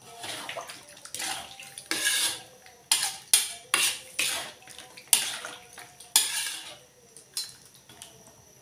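Metal ladle scraping and clanking against an aluminium wok while stirring chicken pieces in a thin soy-sauce gravy: a quick run of about a dozen strokes, the sharpest clanks in the middle, stopping near the end.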